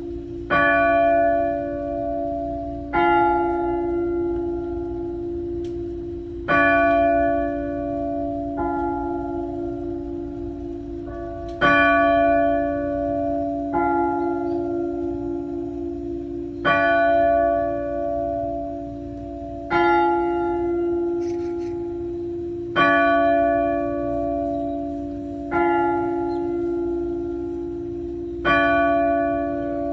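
Church bells ringing. About eleven strokes come roughly every three seconds, and each one rings on under the next, so the hum never stops.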